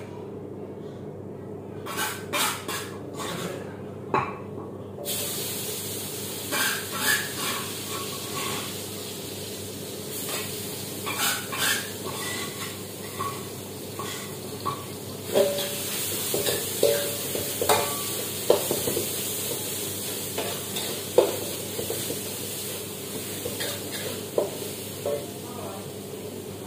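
Food frying in a pan: a steady sizzle that starts suddenly about five seconds in, with a metal spatula stirring, scraping and clinking against the pan throughout.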